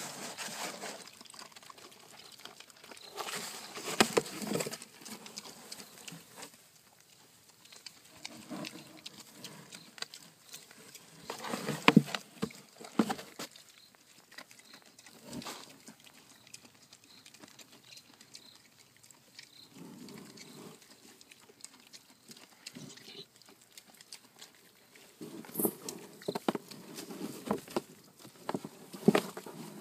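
A group of pigs moving about close by, grunting and scuffling in short, irregular bursts every few seconds. The loudest bursts come a little before halfway and in a cluster near the end.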